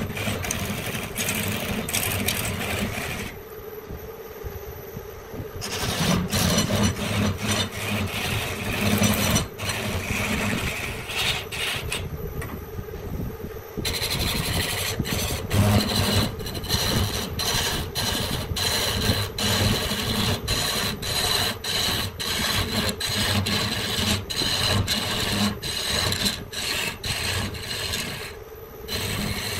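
A wooden branch being worked by hand with an abrasive tool: repeated scraping strokes at about two a second, with short pauses about three seconds and twelve seconds in.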